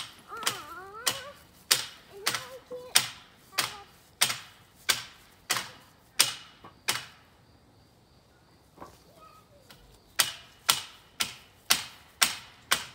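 A run of sharp, evenly spaced clicks, a little over one and a half a second. They stop for about three seconds partway through, then start again. A child's voice is heard briefly near the start.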